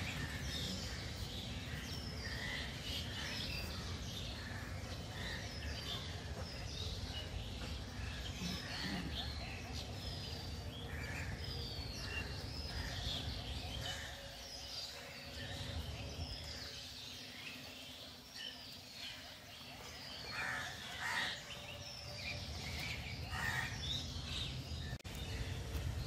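Many birds chirping and calling over a steady low background rumble, with a few louder calls near the end.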